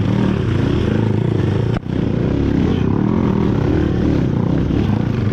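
Dirt bike engine running at a steady moderate speed, its pitch wavering slightly, with a brief break a little under two seconds in.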